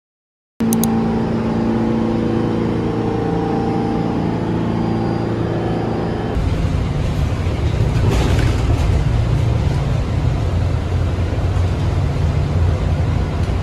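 Steady mechanical hum with several held tones, heard on a subway platform. About six seconds in it gives way to the low engine rumble and road noise of a city bus, heard from inside the bus.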